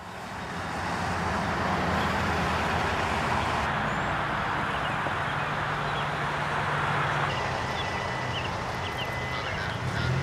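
Steady low drone of an idling vehicle engine under a hiss of outdoor noise, fading in at the start and changing abruptly twice.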